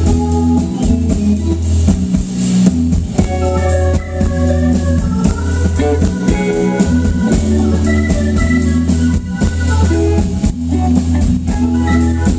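Live band playing: electric guitar, drum kit and a keyboard with an organ sound, with steady drum beats under held chords.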